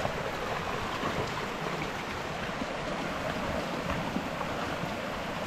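Shallow rocky stream running steadily, with dogs splashing as they wade and play in the water.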